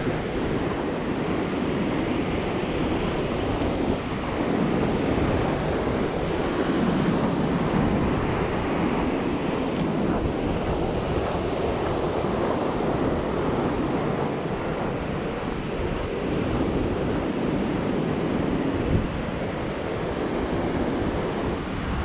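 Ocean surf washing onto the beach, mixed with wind noise on the microphone: a steady rush with no separate events.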